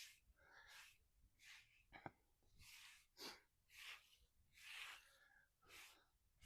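Faint, rhythmic scratchy strokes repeating a little more than once a second, the sound of a hand tool rubbing over a hard surface, with one sharp tick about two seconds in.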